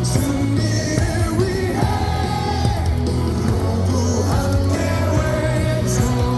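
A stadium crowd of thousands of baseball fans singing a team cheer song in unison over loud amplified music, with shouts mixed in.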